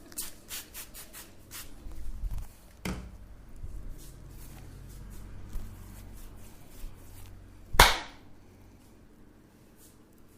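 Hands striking skin during a massage: a quick run of light taps at the start, a firmer strike about three seconds in, and a much louder slap near the eighth second.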